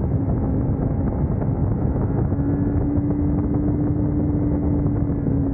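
Kawasaki Ninja motorcycle engine running steadily while riding, its note rising slightly about two seconds in, under a dense rush of wind and road noise.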